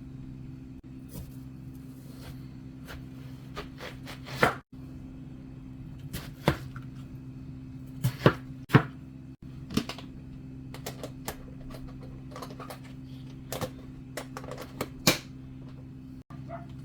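Irregular sharp clicks and knocks of things being handled and set down in a kitchen, with a few louder knocks, over a steady low hum.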